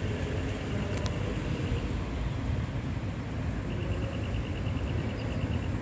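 Steady low outdoor rumble of background noise, with a quick run of faint high-pitched pips near the end.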